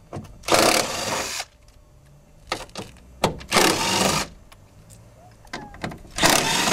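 Power drill running in three short bursts of about a second each as it backs out the bolts holding a car's inner door panel, with small clicks between.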